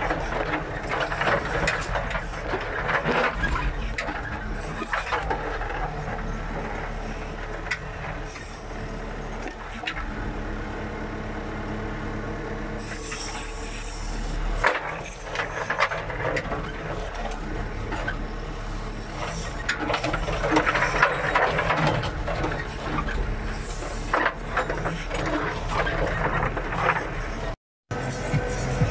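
JCB 3CX backhoe loader's diesel engine running steadily in the cab while the backhoe digs, with bouts of rattling and scraping as the bucket works through stony soil. The sound cuts out for a moment near the end.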